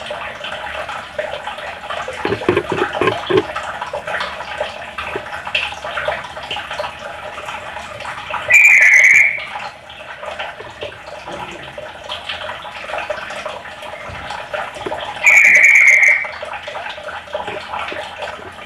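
Cucak ijo (greater green leafbird) calling: two loud, level, buzzy calls, each under a second long, come about halfway through and again a few seconds later, over a continuous busy background of rapid chatter and hiss. A few soft low thumps come about two to three seconds in.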